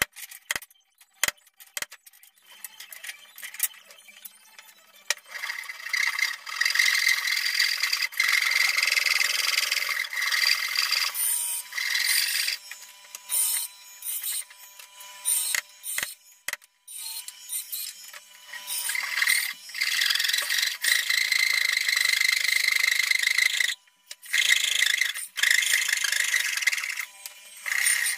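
A tool working wood, with a high squealing edge, running in several long stretches with short pauses; a few sharp knocks in the first seconds.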